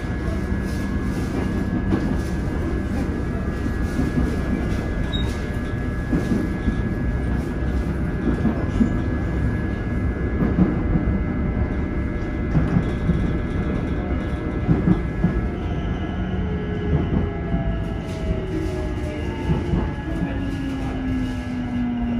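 Cabin sound of a Korail Line 1 electric multiple-unit train on the move: a steady rumble of wheels on rail with scattered clicks. From about two-thirds of the way through, the traction motors' whine slides down in pitch as the train slows into a station.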